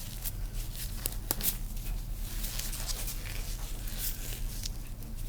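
Small handling noises at a bench: irregular scratchy rustling and scraping with one sharp click about a second in, over a steady low hum.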